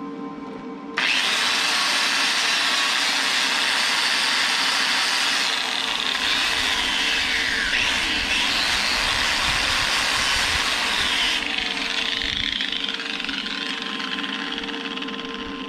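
Angle grinder grinding steel, starting abruptly about a second in with a harsh hiss and a wavering motor whine. It runs hard for about ten seconds, then fades over the last few seconds.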